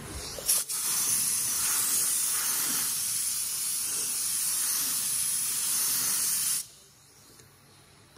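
A sharp click, then a steady pressurized spray hissing for about six seconds before cutting off suddenly: cleaning around the intake gasket area.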